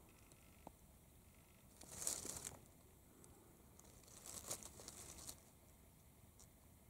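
Faint crinkling rustle in two short bouts, about two seconds in and again about four and a half seconds in; otherwise near silence.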